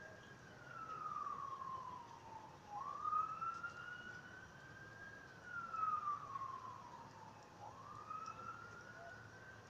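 A siren wailing, its pitch climbing slowly and then sliding back down in a repeating cycle of about five seconds.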